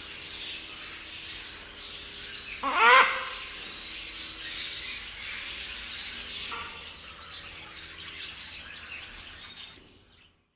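Many caged birds chirping and calling together in an aviary, a busy chatter of high notes. About three seconds in one bird gives a loud call of quick rising notes, the loudest sound here, and a fainter call follows a few seconds later. The chorus fades out near the end.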